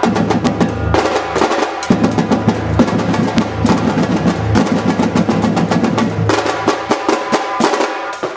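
Percussion ensemble drumming a dense, driving rhythm: deep bass drums under rapid snare and higher drum strokes.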